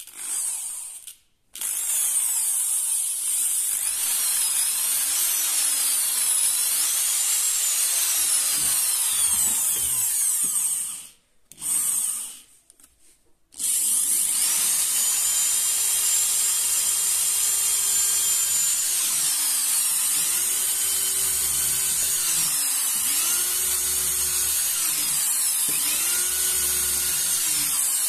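Corded electric hand drill running on freshly replaced carbon brushes, its motor whine rising and falling in pitch as the trigger is eased and squeezed. After a few short blips it runs, stops near the middle, gives one brief burst, then runs steadily again. It runs smoothly with no knocking, a sign that the new brushes are working properly.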